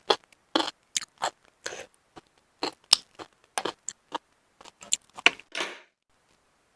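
Close-miked mouth sounds of eating shellfish: quick wet smacks and crisp clicks of chewing, a few a second, stopping about a second before the end.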